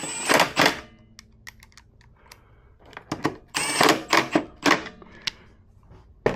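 Quick runs of clicking from a socket ratchet tightening the nuts that hold a lawn mower's recoil starter, with light metal knocks and handling between the runs. The two loudest runs come about half a second in and again from about three and a half seconds.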